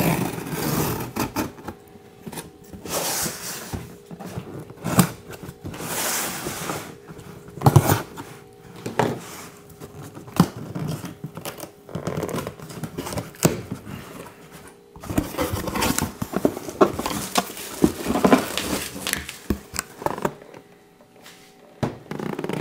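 Cardboard shipping box and packaging being opened by hand: uneven rustling, tearing and scraping with scattered sharp knocks and clicks.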